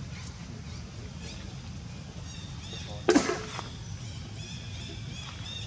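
A single short, loud pitched call about three seconds in, over a run of quick high chirps and a low steady hum.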